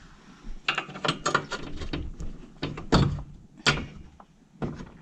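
Tools clattering while a horse stall is mucked out: a run of irregular sharp knocks, scrapes and rattles, the loudest about three seconds in.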